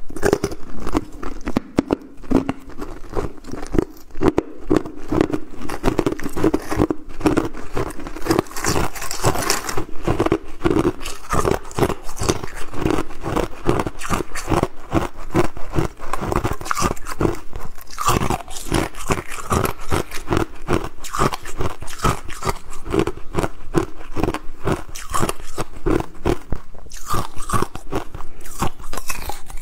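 Hard clear ice being bitten and chewed close to the microphone: dense, loud crunching, several crunches a second, with no let-up.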